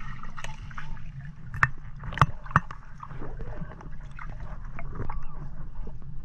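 Water sloshing and gurgling with a steady low rumble, broken by a few sharp clicks or knocks, three of them close together about two seconds in.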